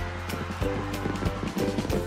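Upbeat background music with a steady beat and a held bass line.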